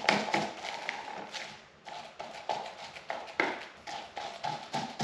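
Paint roller being worked back and forth in a plastic-wrap-lined paint tray to load it fully with coating: a series of irregular knocks and clicks, about two or three a second.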